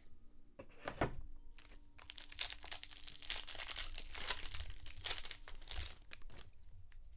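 Wrapper of a trading-card pack being torn open and crinkled: a short crackle about half a second in, then a longer run of crinkling from about two seconds until near the end.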